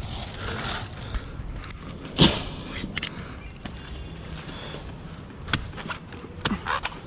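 Scattered sharp knocks and rustling from a climber cutting coconut fronds in the palm's crown, with one loud chop-like knock about two seconds in and a few smaller knocks later.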